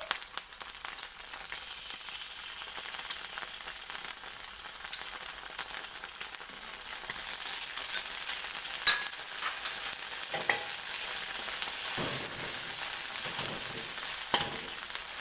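Oil sizzling in a wok as canned fish in tomato sauce fries with egg and garlic. A metal spatula knocks and scrapes against the wok a few times in the second half as the food is stirred.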